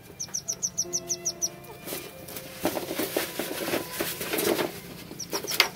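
Rustling and scraping of hands handling plastic string against a rolled fibre (FRP) sheet, between two short runs of rapid high chirps, about eight a second, at the start and near the end.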